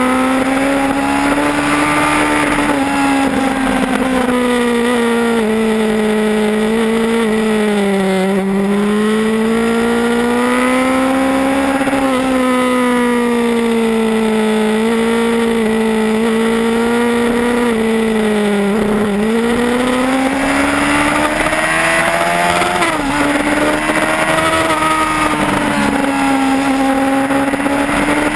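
Yamaha R1's inline-four engine at racing speed, its note rising and falling again and again as the rider accelerates and backs off through the bends, over a rush of wind.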